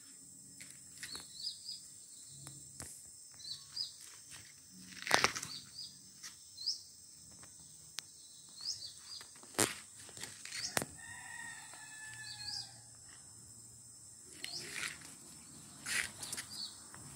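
Sharp snaps of a flat-band rubber slingshot being drawn and shot, the loudest about five seconds in and others near ten and sixteen seconds. Birds chirp repeatedly in short rising notes throughout, and a rooster crows once midway.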